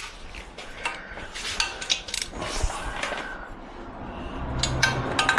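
Metal tools clinking as a deep 12 mm socket and ratchet are fitted onto the exhaust header bolts, with a run of ratchet clicks starting near the end.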